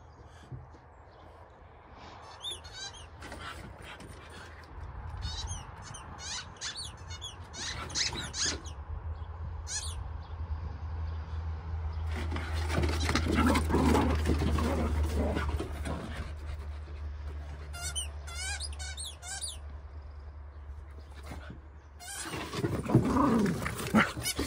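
A Rat Terrier and a French Bulldog play fighting, growling, with a few short high yips. The growling is loudest in the middle.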